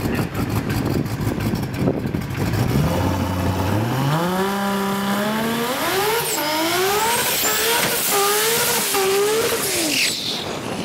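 Toyota 2JZ straight-six in a drag car accelerating hard. Its note starts low and climbs about three seconds in, then rises and drops back sharply several times as it shifts through the gears, fading away near the end.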